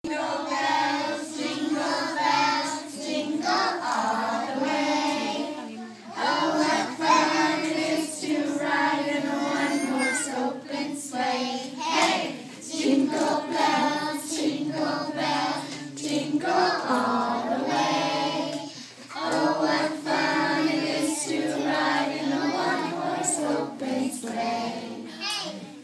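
Small group of young children singing a song together in chorus, with held notes and short breaks between lines.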